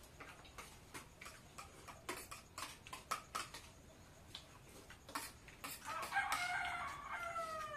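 A rooster crows once near the end, a long call that drops in pitch as it finishes. Before it are light clinks and taps of spoons on plates as people eat.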